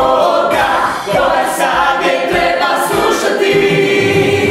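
A song sung by a group of voices, with a long held note near the end.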